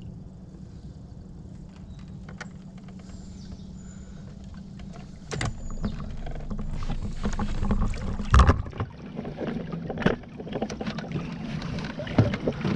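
Movement and handling in an inflatable boat on the water: a steady low background, then from about five seconds in louder knocks and thumps against the hull with water noise, one knock standing out as the loudest.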